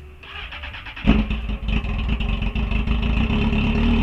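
The 2002 Honda CB600F Hornet's inline-four engine turns over on the starter and catches about a second in. It then runs loud and raw, with no exhaust fitted, and its revs rise slightly near the end.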